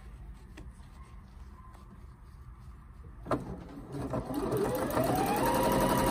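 Janome 1030MX computerized sewing machine stitching a zipper into fabric. After a quiet start and a single click a little past three seconds in, the motor speeds up with a rising whine and runs steadily at speed.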